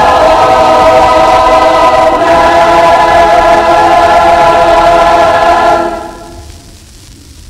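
High school choir holding a long sustained chord, which is released about six seconds in. After it, only the faint low background noise of the 1958 recording remains.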